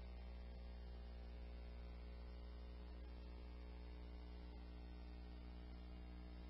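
Steady low mains hum with faint hiss on a radio-scanner recording, in a quiet gap between dispatch transmissions.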